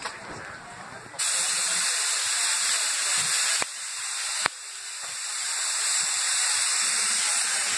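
Steam locomotive blowing off steam: a steady, loud hiss that starts abruptly about a second in, drops away briefly between two sharp clicks near the middle, then builds again.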